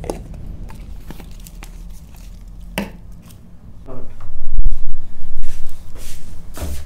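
Rustling and handling noise with a few sharp clicks, then a loud low rumble from about four seconds in that runs on for nearly three seconds.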